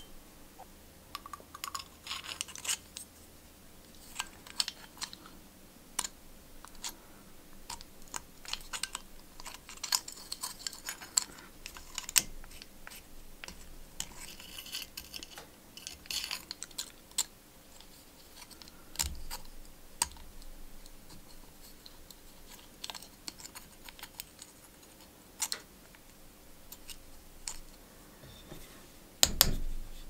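Irregular small metal clicks, taps and scrapes as a homemade nail tool works dents out from inside a thin brass lighter shell against an anvil. A heavier, duller knock comes near the end.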